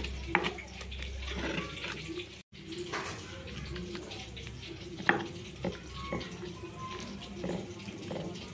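Stone pestle (ulekan) working in a stone mortar (cobek): stone scraping and knocking on stone as chili sambal is ground, then wet mashing as boiled eggplant and tempe are pressed into the sambal, with scattered sharp knocks. There is a brief dropout about two and a half seconds in.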